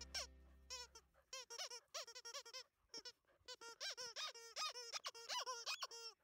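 Squeaky dog toy squeaked over and over as a puppy bites and chews it: quick, uneven, high squeaks, several a second, that start about a second in.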